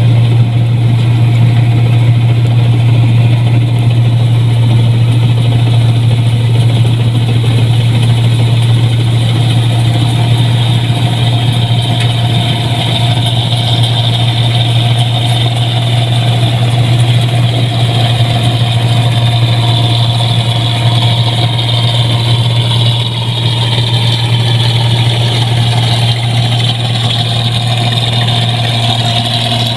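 Rice combine harvester running steadily, with a loud, constant low engine hum and a fainter higher machine whine that grows stronger from about halfway through.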